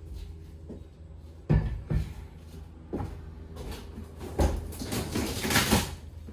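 Pry bar working a glued-down plywood floor board loose: several sharp knocks, then a loud scraping, tearing rasp near the end as the wood comes up off the glue.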